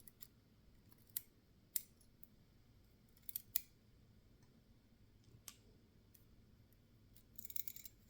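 Light, scattered clicks and ticks of small pin-tumbler lock parts being handled as the pin stacks of a Yale B cylinder are taken out, with a quick rattle of several clicks near the end.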